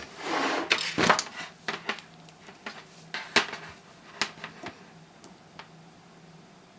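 Scattered sharp clicks, knocks and a short scrape from hands handling the opened laptop battery pack and its 18650 cells, hard plastic and metal tapping together. The clicks thin out and grow quieter toward the end.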